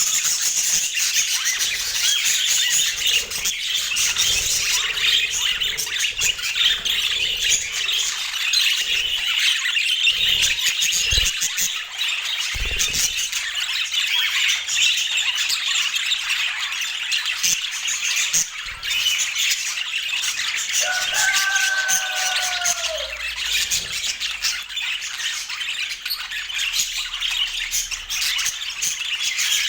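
Budgerigars (budgies) chattering and warbling without a break, with a couple of clearer arching squawk notes about two-thirds of the way through. Two brief low thumps come near the middle.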